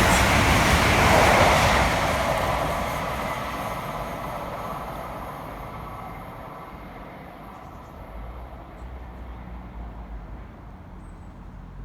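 Avanti West Coast Class 807 electric train passing at speed, its rushing wheel and air noise fading away steadily over several seconds as it recedes.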